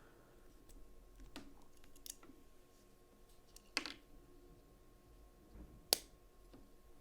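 A few separate sharp clicks and taps of a small folding knife and its parts being handled on a bench, the loudest two about four and six seconds in.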